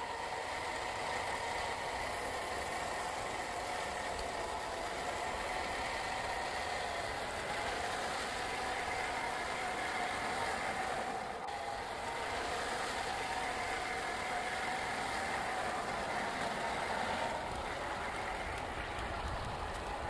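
Electric motor and gearbox of a 1/10-scale RC crawler (550-size motor) whining steadily as it drives, the pitch wavering slightly with the throttle, with a brief dip about halfway through.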